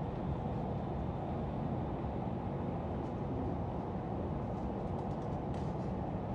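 Steady running noise of a double-decker electric multiple-unit train heard from inside the carriage: an even low rumble of wheels on rail at speed, with a few faint clicks near the end.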